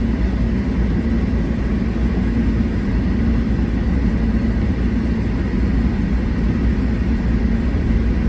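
Car driving at a steady pace, its engine and tyre noise heard from inside the cabin as an even, low rumble.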